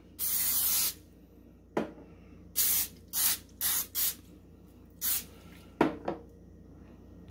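Aerosol can of olive oil cooking spray hissing in bursts onto a foil-lined baking sheet: one long spray at the start, then five short spurts. A few light knocks come between the sprays.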